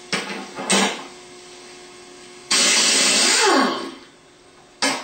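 Chicago Pneumatic half-inch air impact wrench run counterclockwise on a Bosch alternator's pulley nut to loosen it: two short blips of the trigger, then a loud burst of just over a second that winds down in pitch as the trigger is released, and one more short blip near the end.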